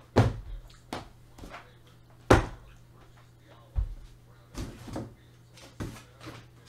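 A run of sharp knocks and thuds from objects being handled and set down on a hard surface, spaced irregularly, the loudest a little over two seconds in, over a steady low hum.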